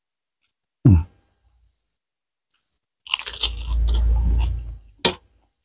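Loud close-up crunching of crispy fried food being chewed for about two seconds, preceded by a low thump about a second in and followed by a sharp click near the end.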